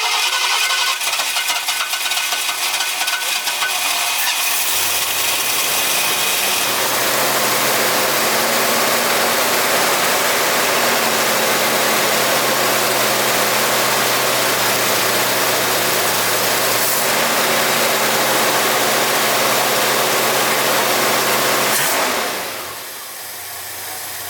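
1969 Ford F-250's engine running fast on its freshly rebuilt Autolite 2100 carburettor during its first start-up. It settles into a steady note a few seconds in and drops in speed near the end.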